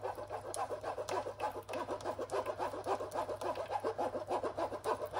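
Spoon working blended fruit pulp through a plastic mesh sieve: rapid, rhythmic wet scraping strokes as the juice is strained off.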